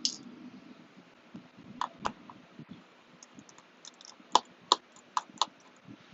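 Sharp, irregular clicks and taps of a precision screwdriver and tiny screws against the aluminium case of a PowerBook G4 12-inch laptop during screw removal. Several of the clicks ring briefly, and a cluster of four louder ones comes past the middle.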